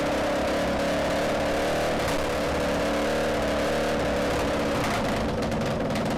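Yamaha WR450's single-cylinder four-stroke engine running steadily at a fast idle. About five seconds in, the revs drop and the individual firing pulses come through. The revs hanging high fits what the owner takes for a lean-running carburettor.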